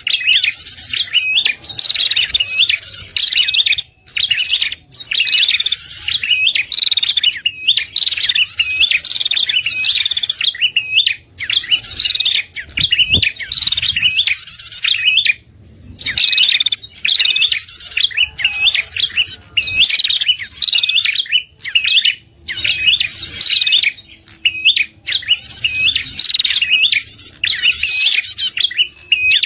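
Prenjak kepala merah lure call (suara pikat): rapid, high chattering chirps with buzzy notes, repeated in phrases about a second long with short breaks between them. It is a call used to draw wild prenjak in.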